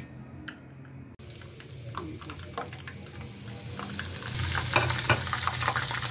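Chopped garlic and green chillies frying in hot oil in a small pan for a tadka: a steady sizzle with many crackles that sets in about a second in and swells louder from about four seconds in.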